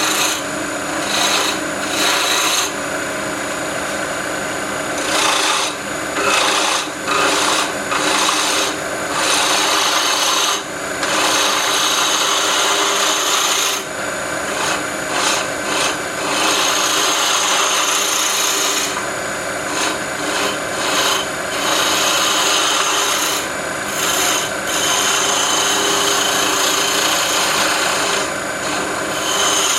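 Wood lathe running while a turning tool cuts a stabilized buckeye burl pen blank. The scraping cut comes and goes in stretches from about half a second to several seconds long, over the steady hum of the lathe.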